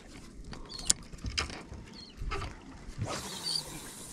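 Irregular clicks and knocks of fishing tackle being handled on a boat, the sharpest about a second in, over a low rumble. A steady hiss comes in about three seconds in.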